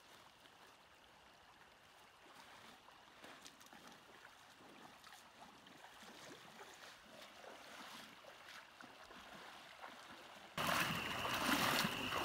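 Flowing creek water, faint at first and growing slowly louder. Near the end it turns abruptly much louder, with a steady high tone over the rushing water.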